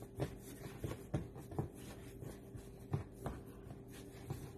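Hands rolling and pressing a log of bread dough on a countertop: soft, irregular thumps and rubbing, over a steady low hum.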